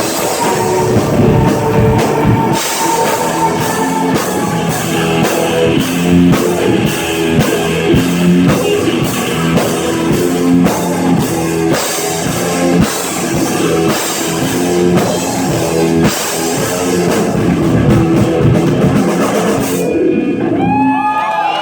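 Rock band playing live, with drum kit and electric guitar, until the song ends about twenty seconds in.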